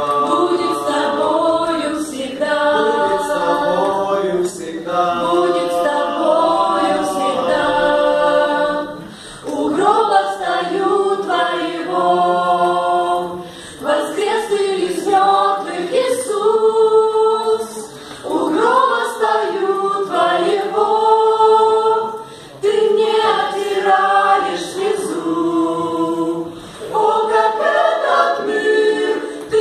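Small mixed choir of men and women singing a cappella in harmony, in held phrases of a few seconds with short pauses for breath between them.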